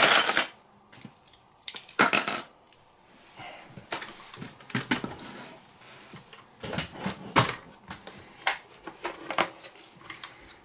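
Small hard plastic RC car parts clicking and clattering as they are handled and fitted on the bench. The knocks come irregularly, with a loud one about two seconds in and clusters around five and seven seconds in.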